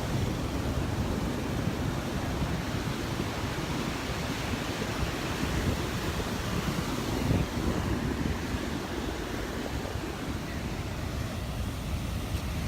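Ocean surf washing onto the beach, with wind buffeting the microphone in a steady, uneven rumble.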